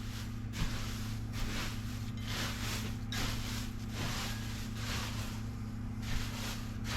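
Repeated soft scraping and rustling of pine-shaving litter being shifted about, in uneven swishes a fraction of a second long, over a steady low hum.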